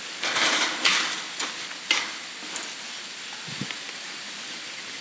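Chain-link kennel panel being worked by hand: a brief rattle of the wire mesh, then several sharp metal clinks about half a second apart and a soft low thump near the middle.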